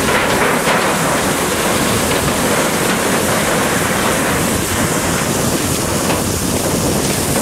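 Steady, loud rushing noise of a burning lightweight-structure building with firefighters' hose streams spraying water into the flames.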